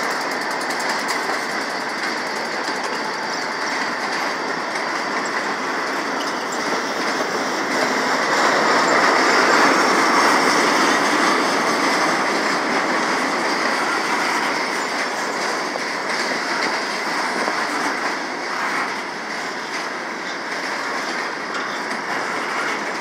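Freight train's boxcars rolling past at close range: a steady, continuous rumble of steel wheels on the rails, a little louder from about eight to twelve seconds in.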